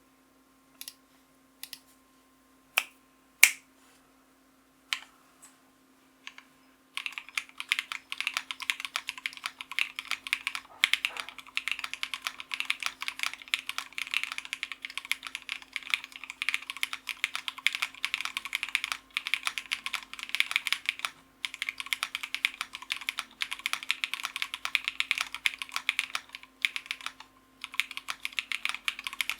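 Meow65 mechanical keyboard with lubed Cobalt Pom switches, a polycarbonate plate and Cherry-profile keycaps being typed on. A few single keystrokes come first, then about seven seconds in fast continuous typing begins, broken only by brief pauses.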